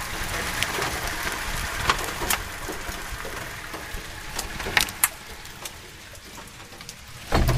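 Hailstorm: hail and rain coming down in a steady hiss, with sharp clicks of single hailstones striking hard surfaces. A low thump right at the end.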